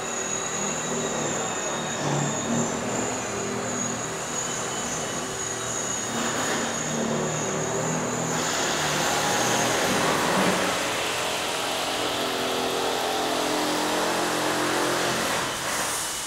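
Antique carousel's machinery running with a steady mechanical rumble and a high whine. The whine stops about eight seconds in, and the rumble gets a little louder.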